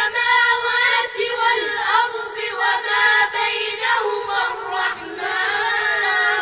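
A group of boys' voices reciting a Quran verse together in melodic chant (murottal), with long held and overlapping notes.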